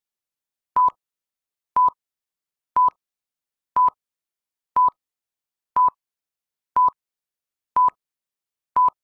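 Short electronic beeps at one steady pitch, one a second, nine in all, with silence between. They make a countdown-timer sound effect that ticks off the seconds while a quiz question waits for its answer.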